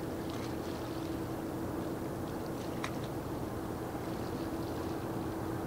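Steady low hum of a large vehicle-carrier ship under way, heard across open water, with a constant mid-pitched tone over a deeper drone. A few faint high chirps and one sharp tick about three seconds in.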